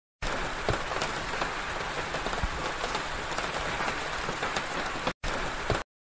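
Steady rain patter with scattered sharp drop ticks, starting abruptly, cutting out for a moment about five seconds in and stopping just before the end.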